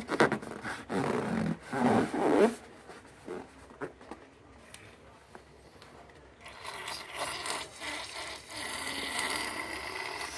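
A rubber balloon being handled: a few loud squeaky rubbing squelches, then scattered small clicks. Over the last few seconds there is a long hissing rasp with a thin steady whine, which cuts off suddenly.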